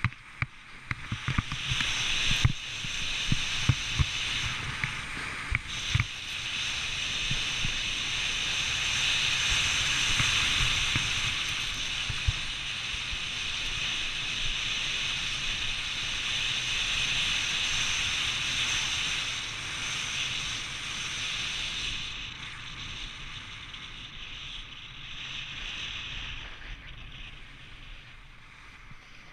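Snowboard sliding and carving on packed groomed snow: a steady hiss of the board scraping the snow, mixed with wind on the microphone. There are a few sharp knocks in the first six seconds, and the hiss grows quieter over the last several seconds as the board slows.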